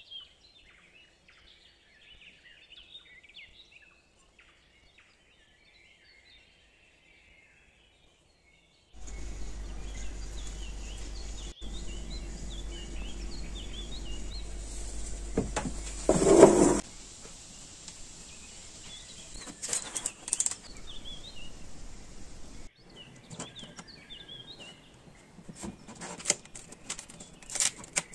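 Small birds chirping in the background, with a steady low hum from about a third of the way in and a brief loud clatter just past the middle. Near the end come sharp crackles and taps as a hand presses the crisp crust of a baked loaf.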